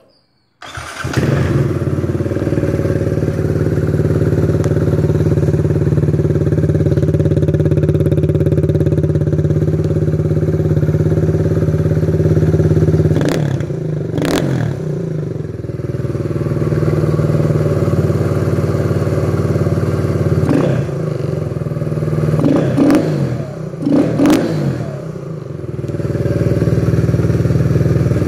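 Kawasaki Z125 Pro's 125 cc single-cylinder engine starting up about a second in and idling through a Two Brothers aftermarket exhaust. The throttle is blipped twice about halfway through and three more times later.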